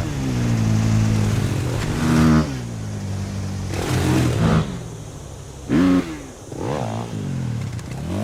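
Motocross dirt-bike engine sound effect revving up and falling back again and again, with quick throttle blips and a sharp climb in pitch a little past the middle.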